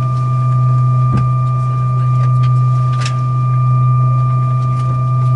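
Airbus A319 yellow-system electric hydraulic pump running for the forward cargo door, heard from the cabin as a loud, steady low hum with a high, even whine on top and a couple of faint clicks.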